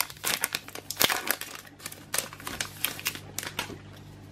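Foil wrapper of a Pokémon trading card booster pack crinkling and tearing as it is pulled open by hand: a run of irregular crackles, loudest about a second in.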